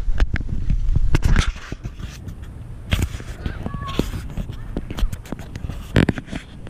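Fingers handling the camera right at its microphone: irregular clicks, taps and scrapes over a low rumble.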